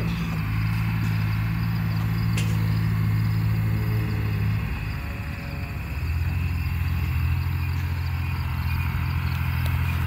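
Tractor engine working under load as it pulls a Papec one-row corn chopper through standing corn, running steadily; its note drops lower about halfway through and then holds steady.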